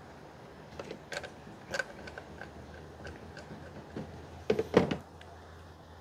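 Scattered light clicks and metal knocks of a hex socket wrench working on the ignition coil hold-down bolts and the bolts being handled, with a few louder knocks about four and a half seconds in. A faint steady low hum runs underneath.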